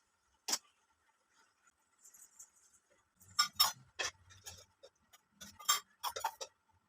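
Metal kitchen utensils and tiffin-box containers clinking and knocking together in short separate strikes: one about half a second in, then a busy cluster in the second half.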